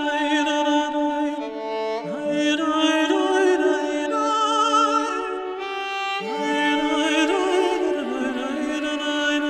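Slow background music made of long held melodic notes with vibrato, changing about once a second.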